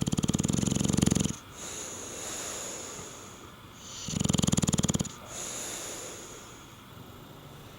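English bulldog snoring in its sleep: two loud rattling snores about four seconds apart, with a softer, hissing, whistling breath between them.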